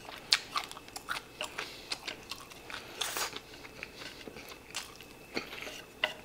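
Close-miked chewing of a mouthful of rice: irregular small wet clicks and crunches from the mouth, mixed with light taps of chopsticks against a wooden plate.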